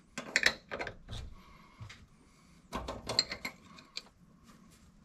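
Wrench clicking and clinking against the brake line fittings on a brake master cylinder as the lines are loosened. The small metal knocks come in two bursts, one near the start and one about three seconds in.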